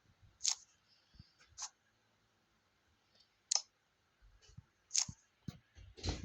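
A few sharp, separate clicks and light knocks, spaced a second or more apart, like small hard objects being handled or set down, with a louder knock near the end.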